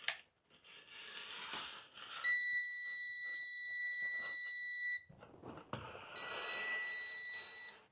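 Electronic stud finder with metal detection giving a steady high alert tone for about three seconds, starting about two seconds in, then again more faintly for about a second and a half near the end, as it passes over metal screws and fasteners inside the log wall. Faint scraping of the scanner sliding over the wood is heard between the tones.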